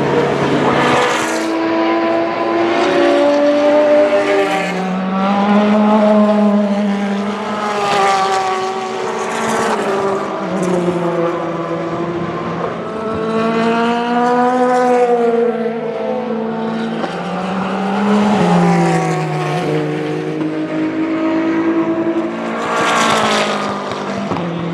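Race cars passing one after another at speed, several engines overlapping, each engine note rising and falling in pitch as it goes by.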